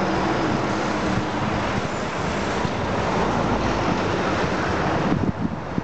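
Demolition excavator's diesel engine and hydraulics running steadily as its grab works at a brick building, with wind noise on the microphone.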